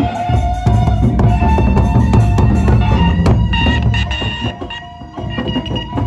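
A gendang beleq ensemble playing: large Sasak barrel drums beaten with sticks in a dense, fast interlocking rhythm, with ringing metal tones held above the drumming. The drumming eases briefly near five seconds in, then picks up again.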